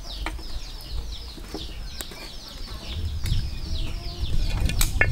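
Chickens clucking, with a steady run of short, high, falling peeps. A metal spatula clicks now and then against an iron wok, and a low rumble swells about three seconds in.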